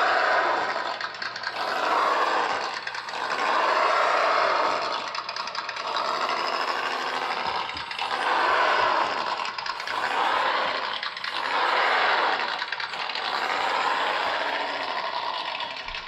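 PRC QX4 1/18-scale RC crawler driving, its engine sound swelling and fading in pitch and loudness every second or two as the throttle is worked.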